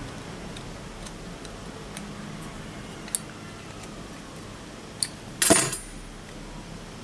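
Small metal parts and hand tools clicking and clinking on the work surface while an eyeglass frame's hinge screw is handled. There are faint scattered ticks, two sharp clicks, and a louder, brief clatter about five and a half seconds in.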